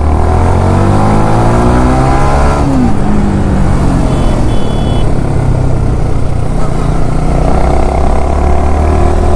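Yamaha R15 V4's 155 cc single-cylinder engine accelerating, its pitch rising for about two and a half seconds, dropping suddenly at a gear change, then running steadily before rising again near the end as the bike speeds up.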